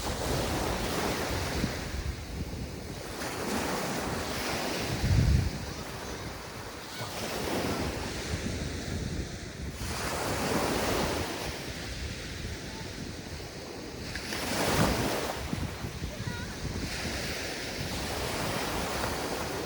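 Mediterranean sea waves breaking and washing up the shore, the surf swelling and falling every few seconds, with wind buffeting the microphone. A brief low buffet about five seconds in is the loudest moment.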